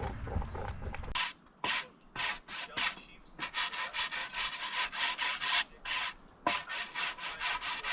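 Quick, rhythmic rubbing strokes on wood, about four a second, in three runs with short pauses between them, like hand sanding or rasping.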